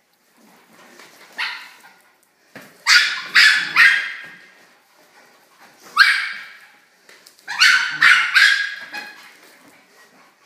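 Small dog barking in sharp, high-pitched yaps, about eight in all, mostly in quick runs of two or three.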